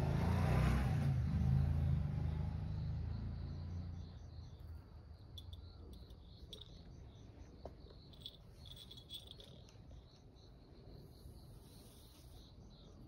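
Crickets chirping in a steady, evenly pulsed rhythm. A low rumble fades away over the first four seconds.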